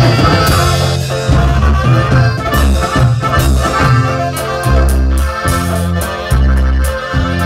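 Norteño band playing an instrumental passage live: accordion leading over a strummed bajo sexto, drums and a steady, bouncing bass line.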